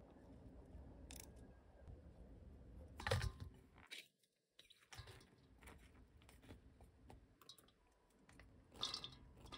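Faint handling of soft steamed eggplant pieces, moved about and slid into a stainless steel mixing bowl, with two brief louder knocks, one about three seconds in and one near the end. The sound cuts out for a moment about four seconds in.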